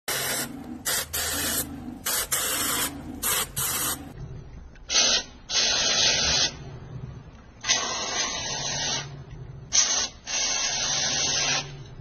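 Spray from an air-conditioner cleaning sprayer hissing in on-off bursts, quick short squirts at first and then longer blasts of about a second each, over a low steady hum.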